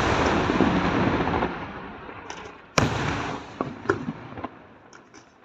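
Fireworks display: loud shell bursts crackling and reverberating as they die away over the first two seconds. Another sharp bang comes a little under three seconds in, followed by scattered pops.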